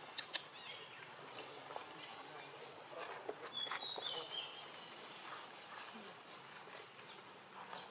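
Faint outdoor ambience with a few short, high chirps, one gliding about halfway through, and scattered light clicks.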